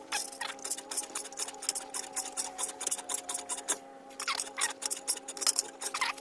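Rapid light hammer taps on the steel door skin of a 1939 Hillman Minx, about four or five a second, as the panel edge is hammered over. A steady hum runs underneath.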